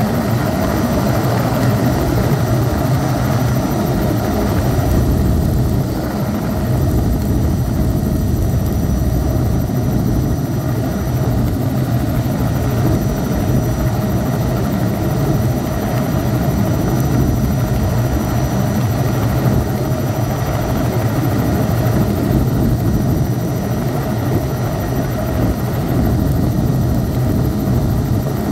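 Helicopter in flight, heard from inside the passenger cabin: a steady, loud rotor and engine noise with a faint high whine that comes and goes.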